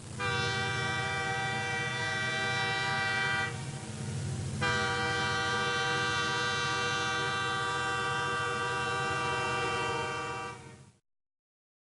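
A long, steady horn-like blast with many overtones and a rumble beneath it, lasting about eleven seconds. Its upper part thins for about a second a few seconds in, and it cuts off near the end.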